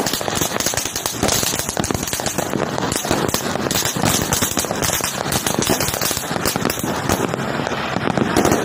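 Fireworks crackling: a dense, unbroken run of sharp pops and crackles, many to the second.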